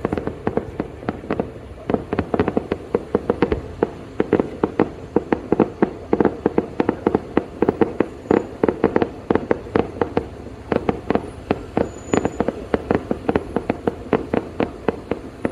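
Fireworks display: a rapid-fire barrage of shell bursts, several sharp bangs a second, growing dense about two seconds in and keeping on without a break.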